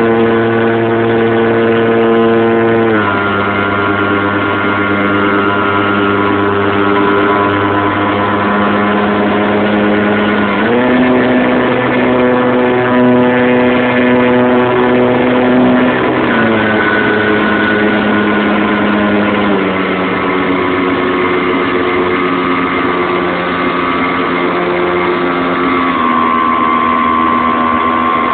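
Radio-controlled model airplane's motor and propeller running steadily, the pitch stepping down about three seconds in, up again about ten seconds in, and down near sixteen seconds, with two smaller drops later, as the throttle setting is changed.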